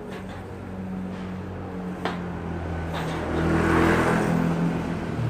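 Street traffic: a motor scooter passing close by, loudest about four seconds in, over a steady engine hum. A single sharp click about two seconds in.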